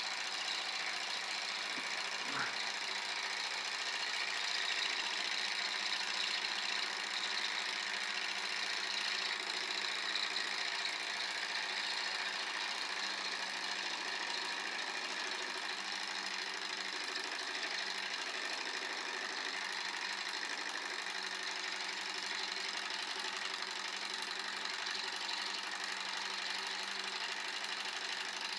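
Small candle-heated hot-air Stirling engine running steadily, its piston and belt-driven flywheel and generator making an even, continuous mechanical sound, with one brief click a couple of seconds in.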